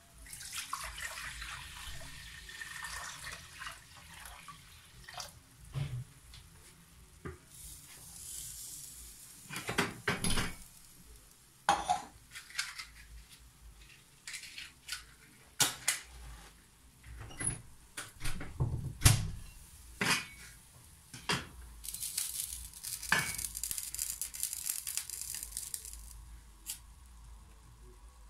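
Liquid poured from a plastic jug into a pot, a hissing pour lasting a few seconds, followed by kitchen handling: scattered knocks and clinks of pots, lids and utensils, the loudest about two-thirds of the way through, with two more short spells of hiss.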